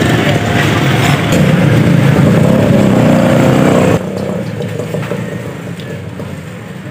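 Motorcycle engine running, loud and dense for about four seconds, then the noise drops off suddenly to quieter street traffic.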